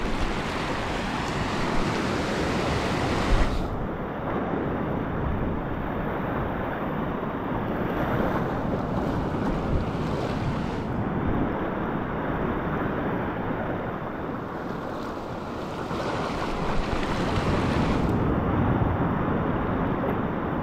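Ocean surf breaking and washing over a rocky reef flat: a steady rush that swells and eases, loudest near the end.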